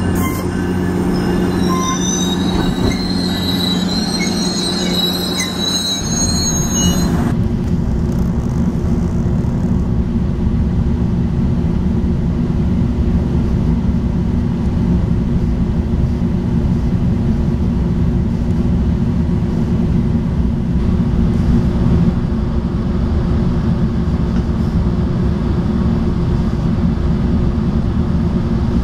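A Metrolink bilevel commuter train rolling past at close range, its wheels squealing with thin high tones over the rumble. About seven seconds in this gives way to the steady rumble and low hum of riding aboard a moving Metrolink train.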